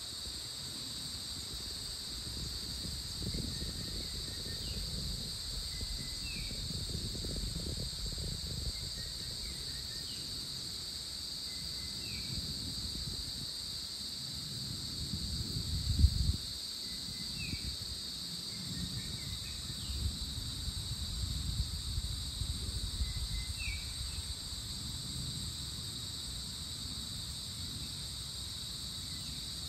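Steady, high-pitched drone of insects, with a bird giving short chirps every few seconds. Wind rumbles on the microphone throughout, with a strong gust about halfway that is the loudest sound.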